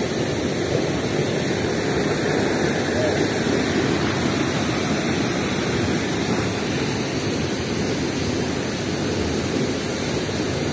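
Steady rush of water pouring through a weir's sluice gates, an even noise that holds without let-up.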